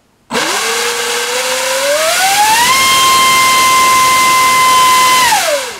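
GoolRC 4082 1900kV brushless inrunner motor driving a 6x8 propeller, a 7x8 cut down to 6 inches, on a thrust stand. It starts suddenly and its whine climbs over about two seconds to full throttle, holds steady over loud propeller wind noise, then winds down and stops near the end.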